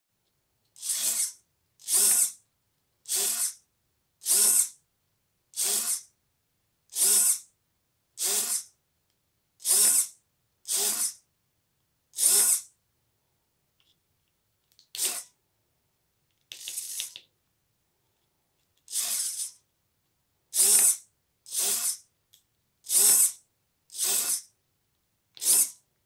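RC servos being swung back and forth under test, each swing a short burst of electric motor and gear whine, about one every 1.2 seconds. The bursts pause for about two seconds midway, then come a little irregularly before the steady rhythm returns.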